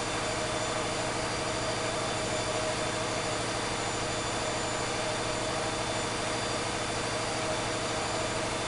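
Caterpillar 3516B V16 diesel engine running at a steady speed on a dyno, with an even, unchanging tone.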